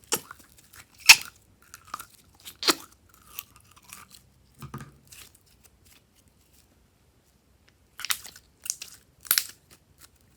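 Glossy slime being squeezed and worked by hand, giving sharp wet pops and crackles in irregular clusters, with a pause of about two seconds before a last few pops near the end.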